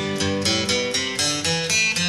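Background music led by a plucked guitar, with a steady run of notes several times a second.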